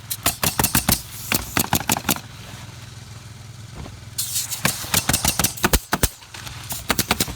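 Pneumatic roofing nailers firing shingle nails in quick runs of about five or six shots a second, in three spells with short pauses between.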